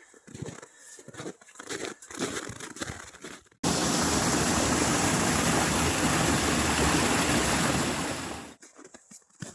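Faint irregular crackling and rustling, then a loud steady rushing noise that starts suddenly about three and a half seconds in and cuts off about five seconds later.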